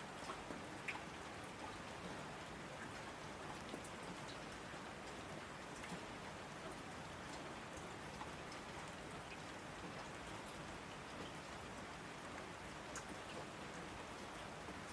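Steady rain falling: an even hiss with scattered light ticks of drops.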